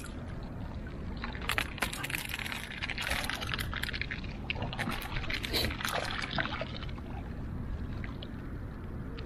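Shallow seawater splashing and sloshing as people wade and work a hand net in it, a run of short splashes over a steady low rumble.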